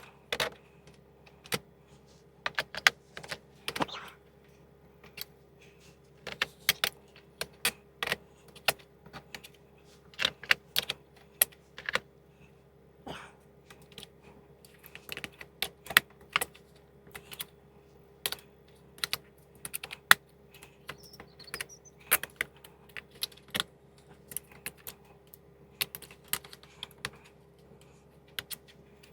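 Steel sockets clicking and clinking as they are handled and twisted onto the plastic clips of socket rails, in irregular sharp clicks a few per second.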